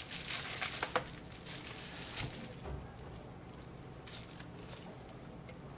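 Small clicks and rustling from hands working on a MacBook Air's internal parts. They are busiest in the first two seconds or so, then thin to a few scattered ticks.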